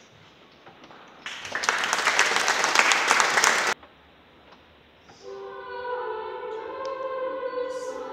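Children's choir beginning to sing, holding sustained chords of several voices from about five seconds in. Before that, a loud rush of crackling noise lasts about two and a half seconds and cuts off abruptly.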